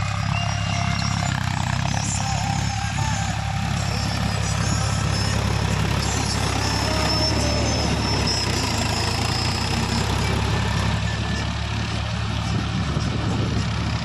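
Mahindra Yuvo 575 DI 4x4 tractor's four-cylinder diesel engine running steadily under load as it pulls a round baler through straw windrows, with the rattle of the baler's working parts behind it.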